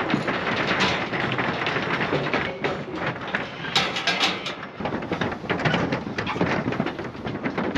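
Dense clatter of many small knocks and taps: lambs' hooves on the loading ramp and deck as they are loaded onto a stock truck.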